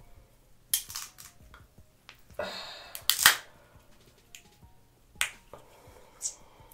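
Sharp clicks and cracks of king crab shell being picked apart with a thin seafood pick, about six separate snaps, the loudest about three seconds in.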